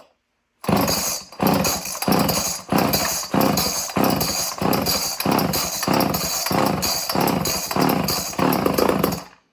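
Homelite XL chainsaw being pull-started: about a dozen quick, evenly spaced pulls of the recoil starter rope, roughly one and a half a second, that start suddenly and stop abruptly near the end.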